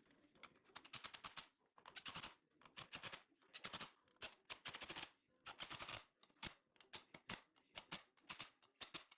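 Mechanical clicking in quick short bursts, each a rapid run of sharp clicks, repeating roughly once a second.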